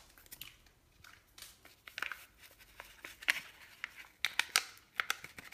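Paper sachet of baking powder crinkling and rustling as it is opened and emptied into a bowl of semolina, in short irregular crackles.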